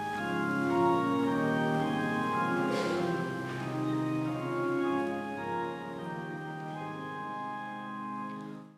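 Church organ playing sustained chords as closing music after the dismissal, cut off abruptly near the end.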